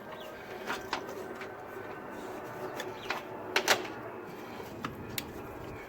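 Several sharp metallic clicks and knocks of hand tools and parts being handled, the loudest two close together about three and a half seconds in, over a steady background hum.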